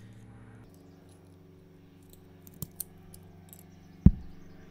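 Hobby knife cutting a thin-walled 3D-printed plastic part, with a couple of small clicks about two and a half seconds in. A single dull knock on the wooden bench comes about four seconds in. A steady low hum runs underneath.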